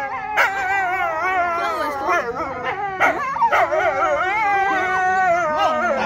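Several wolves howling together in a chorus, overlapping wavering howls with a few short yips mixed in.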